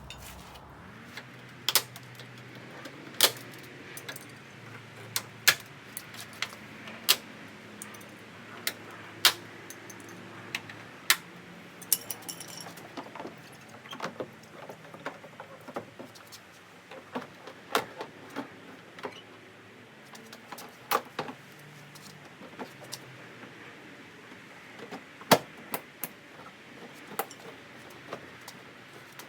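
Irregular sharp clicks and snaps of plastic retaining tabs on a Jeep JK fender flare being pulled off and handled, a few dozen clicks with uneven gaps, some much louder than others.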